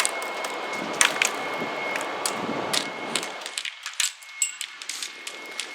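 Scattered sharp clicks and snaps of airsoft gunfire during a game, over a rushing noise that dies away about three and a half seconds in. A faint steady high whine runs underneath.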